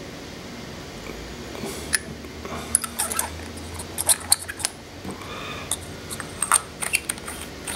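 Metal parts and an 18650 battery being handled as the battery is slid into a metal tube: many sharp little clicks and taps, coming thick and fast from about two seconds in.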